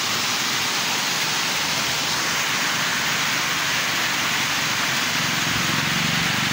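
A small waterfall pouring over a low stepped stone weir and onto boulders in a mountain stream, a steady rush of falling water.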